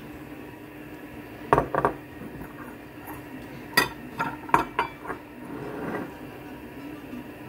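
Kitchenware clinking against an enamel soup pot: a pair of sharp knocks about a second and a half in, then a cluster of clinks around four seconds in, as chopped eggs are tipped in and the soup is stirred with a ladle. A softer stirring swish follows near six seconds.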